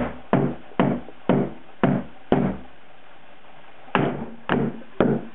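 A wooden-handled steel hammer driving small nails into a wooden board, struck about twice a second. Each blow rings briefly. There are about nine blows, with a pause of a second and a half in the middle.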